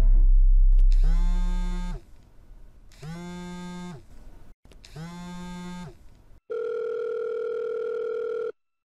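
Phone tones: three buzzes about a second long each, two seconds apart, each sliding up in pitch at the start and down at the end, then a steady two-pitch ringing tone for about two seconds that cuts off suddenly. A low drone fades out during the first two seconds.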